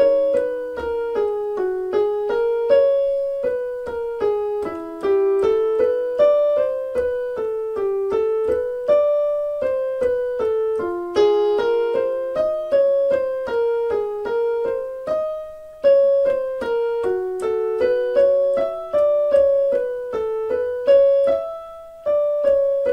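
Piano playing the jazz warm-up's short melodic phrase over and over, each repeat starting a little higher, stepping up by semitones, as backing for the vocal exercise.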